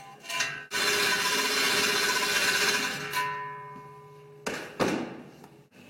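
A power tool cuts into metal in a loud burst of about two seconds, then fades, followed by two sharp knocks near the end, with background music underneath.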